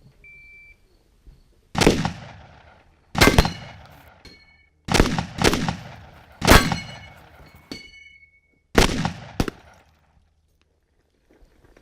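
A shot timer's short start beep, then about seven shotgun shots fired over some eight seconds, some in quick pairs, with steel targets ringing briefly after some of the hits.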